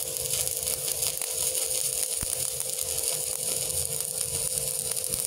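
Stick (MMA) welding arc crackling and sizzling steadily as the electrode burns, powered by a Multipro MMA-120 IGBT inverter welding machine, with a steady hum underneath.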